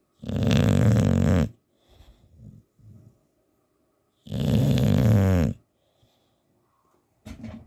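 English bulldog snoring: two long snores about four seconds apart, each lasting over a second, with soft breaths between them and a short snore near the end.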